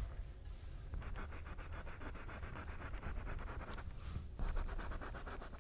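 A paintbrush scrubbing oil paint onto stretched canvas in rapid back-and-forth strokes, many per second, with a brief pause a little past four seconds before the scrubbing resumes.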